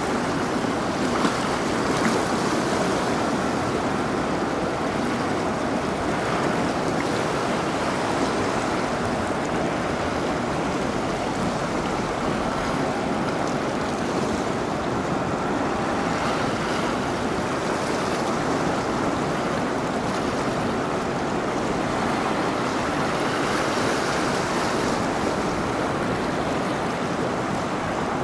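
Steady rushing and washing of water as a large bulk carrier, the Miedwie, passes close by, its bow wave and wake stirring the river.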